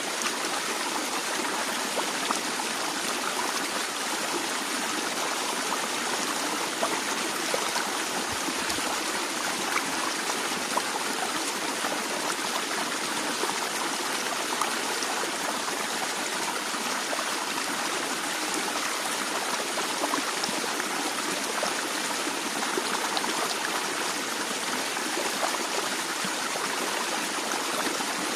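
A small stream flowing steadily, an even rush of water with faint trickling and splashing over stones.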